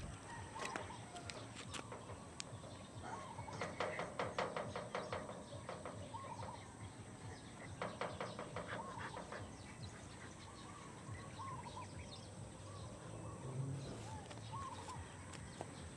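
Birds calling: two bursts of rapid clucking pulses, about four and eight seconds in, with short chirps in between.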